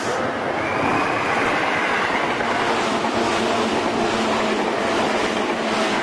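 Commuter train on a station platform, a steady loud rushing noise that swells about half a second in.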